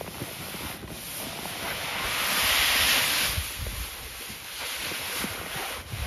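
Snow hissing as it slides down the Roof Razor roof rake's plastic tarp chute and pours off the edge, swelling loudest about halfway through.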